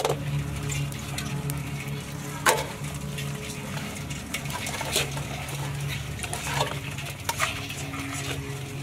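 Raw crabs being broken apart by hand over an aluminium basin: scattered cracks and snaps of shell and scrapes against the metal, the sharpest about two and a half seconds in. A steady low hum runs underneath.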